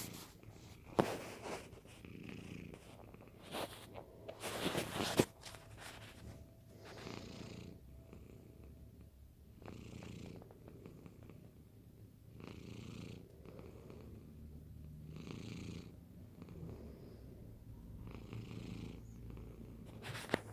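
Domestic cat snoring in its sleep: soft, slow breaths about every two and a half to three seconds. A few louder noises come in the first five seconds.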